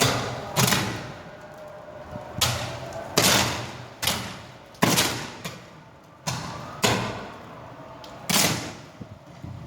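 A string of about nine sharp bangs at irregular intervals, each tailing off over about half a second: 220-volt mains short circuits arcing over.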